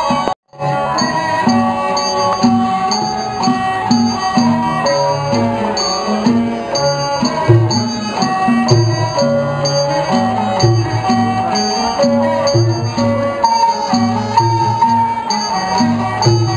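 Thai traditional ensemble music: sustained melodic notes over a regular low drum beat. The sound cuts out for a moment about half a second in.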